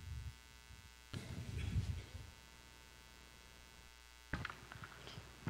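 Low, steady electrical hum from the sound system, with a soft rustle about a second in as the speaker changes at the pulpit. The hum cuts off with a click a little over four seconds in.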